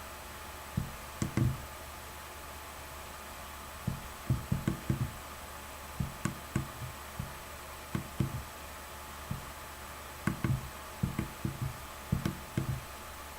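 Soft, irregular knocks and taps, often in quick runs of two to four, over a steady faint hiss and hum.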